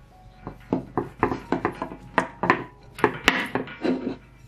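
Wooden rolling pin rolling bread dough flat on a wooden board: a quick, irregular run of knocks and rubs as the pin goes back and forth, starting about half a second in and stopping shortly before the end.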